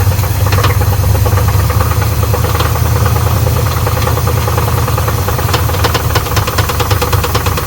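Pontiac Trans Am V8 idling with a valve cover off, with a steady run of light knocks and ticks over the engine note that grow denser near the end. The owners suspect the knock could come from a loose, out-of-adjustment rocker.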